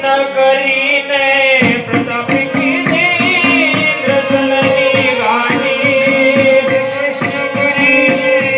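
Live folk-theatre music: a voice singing with wavering, ornamented notes over a steady held drone, into a microphone. Hand-drum strokes come in a little under two seconds in and keep a steady beat.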